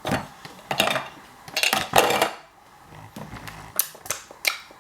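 Toy ice cream set pieces knocking and clattering together in play: a few separate clicks and knocks, with a longer rattling clatter about two seconds in.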